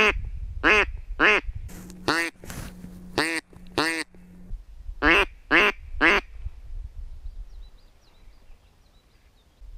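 Mallard duck call (a borrowed Double Nasty call) blown by mouth, giving about ten quacks in three groups, the last ending about six seconds in. Faint bird chirps follow.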